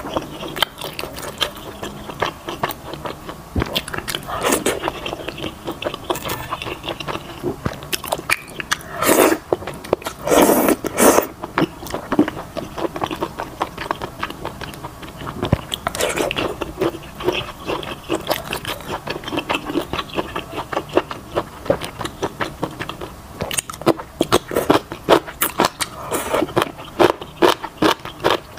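A person eating spicy malatang with wide potato noodles close to a clip-on microphone: wet chewing and mouth noises with many small clicks. There are a few louder bursts about nine to eleven seconds in.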